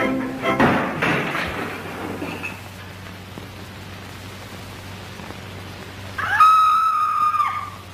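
Early sound-cartoon soundtrack: the music breaks off, leaving the steady hiss and hum of the old film track. About six seconds in, a loud, high whistle-like tone slides up, holds for about a second and a half, then drops away.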